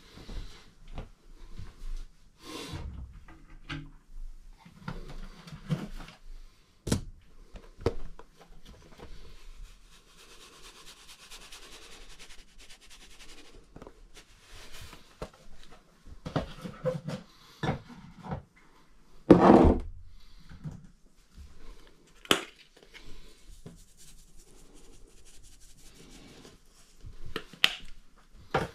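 Kitchen handling sounds as dried seasonings are shaken from their containers over raw beef in a pot: scattered clicks, knocks and rubbing. A soft hissy shaking runs for a few seconds about ten seconds in, and one louder knock comes a little before twenty seconds.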